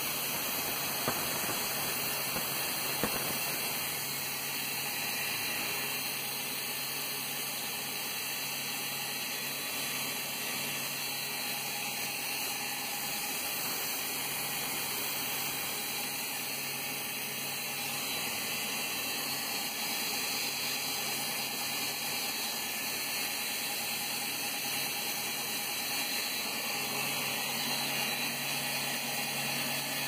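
Compressed-air paint spray gun hissing steadily, with a low mechanical hum underneath that drops out midway and returns near the end.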